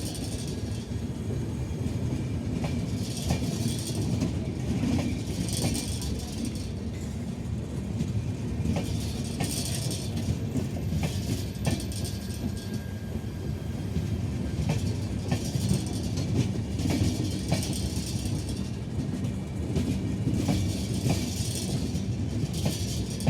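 Indian Railways passenger coach rolling along the track: a steady low rumble, with clacks of the wheels over rail joints and swells of hiss every few seconds.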